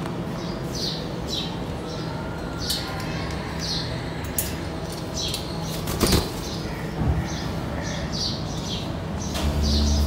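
Alexandrine parakeet moving about and handling a plastic Rubik's cube: a string of short rustles and scrapes about every half second, with a sharp knock about six seconds in.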